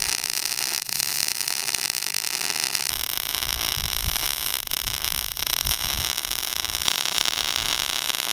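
MIG welding arc burning continuously, a steady hiss, as a fillet bead is run joining a shipping container's steel corner to a steel base plate.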